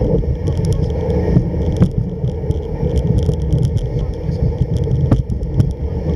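Runners of a homemade kick sled gliding over snow, a steady low rumble with scattered light clicks.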